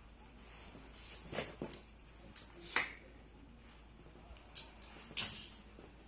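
A folding stove pipe being handled and opened by hand: a handful of short scrapes and rustles with quiet between them.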